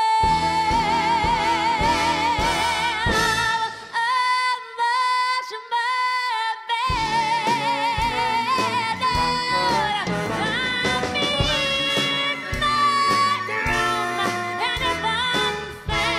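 A woman belting long held notes with wide vibrato, accompanied by a live orchestra. About four seconds in the accompaniment's low end drops out, leaving the held voice almost alone for about three seconds, then the full orchestra comes back in under her.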